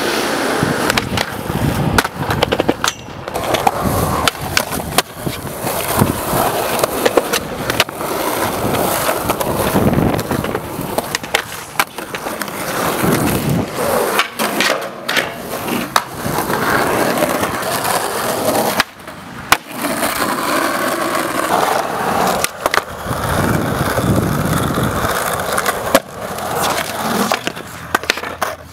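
Skateboards rolling on concrete: the steady rumble of the wheels, broken by sharp clacks and knocks from tail pops, boards hitting the ground and landings.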